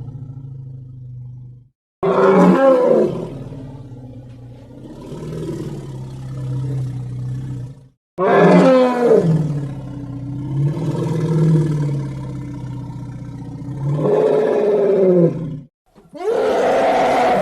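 A string of long, animal-like roars played as sound effects. Each roar opens loud with a falling pitch and then draws out, with short silent breaks about 2, 8 and 16 seconds in.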